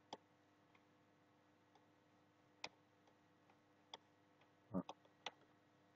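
Near silence broken by a few faint, sharp computer mouse clicks at irregular intervals, with a short double click about three-quarters of the way through.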